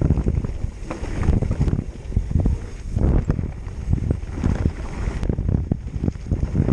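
Mountain bike on 27.5-plus tyres descending a fast dirt chute: wind rushing over the microphone and the tyres rumbling on dirt, with frequent rattling knocks as the bike hits bumps.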